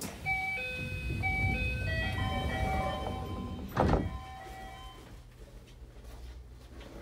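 A station departure melody plays as a short tune of clear chime notes. About four seconds in, the train car's sliding doors shut with one loud thud, and after that only a low steady hum is left.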